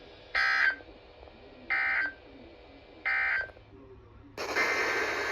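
Three short bursts of EAS SAME digital data, the buzzing modem-like screech that closes an alert as its end-of-message code, about 1.3 seconds apart. Louder, hissy broadcast audio cuts in about four seconds in.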